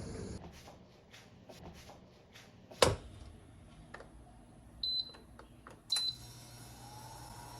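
Microwave oven being set going: a few light clicks, the door shutting with a loud click, two short keypad beeps about a second apart, then the oven starting up with a steady hum and a slowly rising tone.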